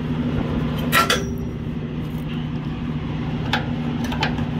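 Semi-truck diesel engine idling steadily, with a few sharp metallic clinks as the air-hose gladhands are handled and coupled to the converter dolly, one of them ringing briefly about a second in.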